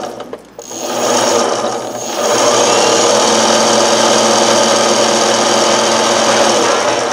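Car alternator converted to an electric motor, running on three 12-volt batteries in series and spinning a jackshaft through a V-belt with no load, since the rear chain is not yet hooked up. It gives a steady motor whir; the sound drops briefly about half a second in, picks back up, and runs steadily from about two and a half seconds on.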